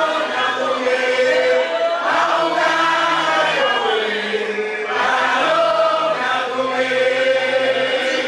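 A group of voices singing a chant-like song together, in phrases of held notes a second or two long, sung into microphones.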